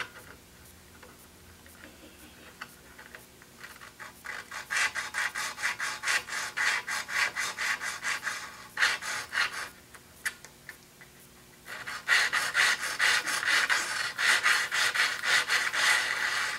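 Small blue diamond hand hone rubbing in quick back-and-forth strokes along the bevel of a guillotine paper cutter's bottom blade, sharpening the edge. The strokes begin about two seconds in, stop briefly twice around the middle, then run on steadily.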